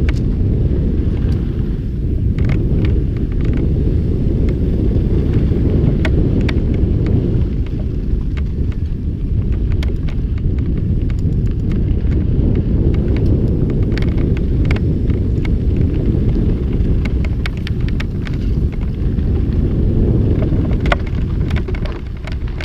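Wind buffeting the microphone of a mountain bike rider's camera while riding at speed, a steady low rumble, with frequent short clicks and rattles of the bike and tyres over a rough trail.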